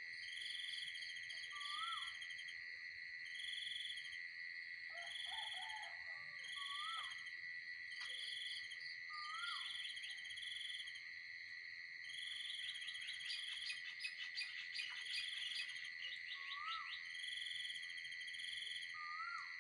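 Pre-dawn insect chorus: crickets and other insects keep up a steady high trill, while a second insect pulses about once a second. Over it a bird repeats a short rising-then-falling whistle every few seconds, with a brief burst of chatter and a run of rapid ticks partway through.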